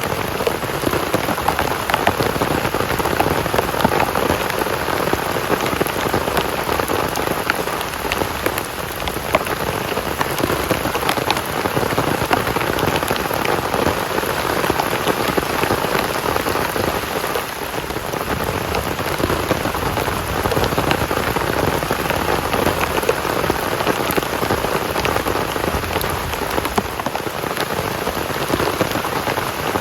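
Heavy rain falling steadily, a dense hiss with many individual drops ticking close by.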